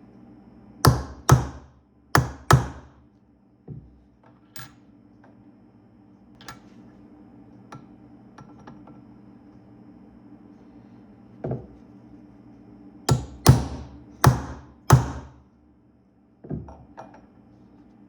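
Dead blow hammer striking a center punch on a brass pipe cap, marking the spot for a drill hole. The sharp strikes come mostly in pairs: two pairs near the start, a single strike later, then four more in quick succession near the end, with a few lighter knocks in between.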